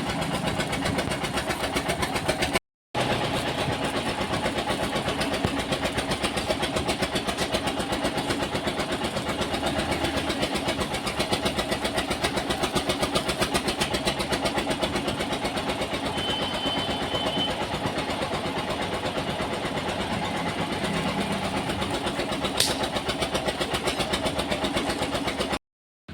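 Electric arc welding: a steady, dense crackle of the arc, with two brief dropouts to silence.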